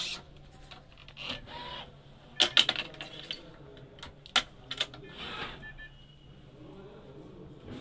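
Sharp clicks and clacks of the string clamps on a Yonex stringing machine being handled and set: a quick cluster about two and a half seconds in, then a few single clicks.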